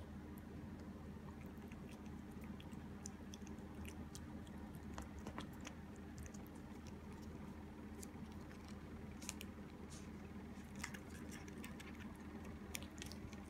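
Cats licking a lickable purée treat from a squeeze tube: faint, irregular wet clicks and smacks of tongue and mouth, growing busier in the later part, over a steady low hum.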